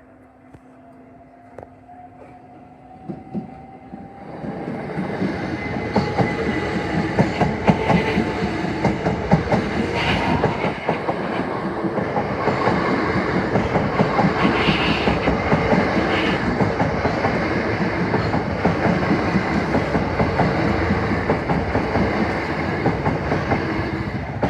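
Southeastern passenger train passing over the level crossing. A faint rising whine at first, then about four seconds in loud, continuous wheel clatter with rapid clicks over the rail joints and crossing.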